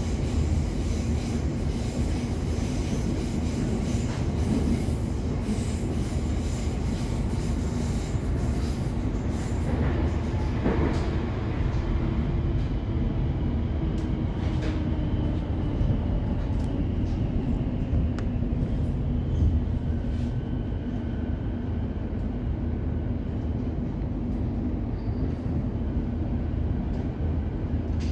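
Electric suburban train heard from inside the carriage while running: a steady low rumble of wheels on rail, with scattered short clicks and knocks over the track.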